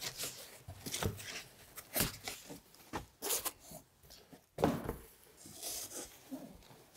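Irregular rustling, scraping and a few soft knocks of packaging inside a cardboard shipping box as a benchtop centrifuge is dug out of it by hand.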